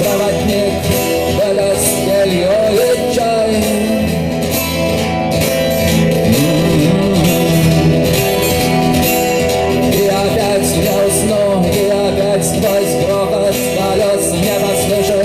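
A man singing a rock song live to acoustic guitar accompaniment.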